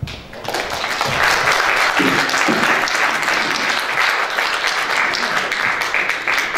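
An audience clapping, steady applause that breaks out at once and holds throughout.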